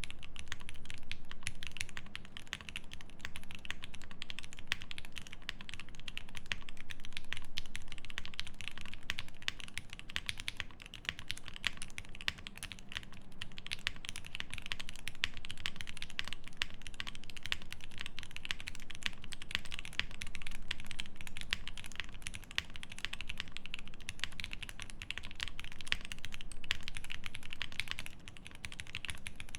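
Fast, continuous typing on an E7 V2 mechanical keyboard with lubed Pinoko switches, an aluminium plate and GMK keycaps: a dense, steady patter of keystrokes with a few brief pauses.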